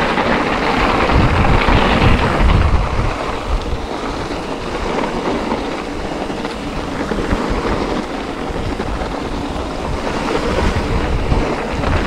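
Trek Rail electric mountain bike being ridden over a snowy trail: tyre noise, rattling of the bike and wind buffeting the action-camera microphone, a little louder in the first few seconds.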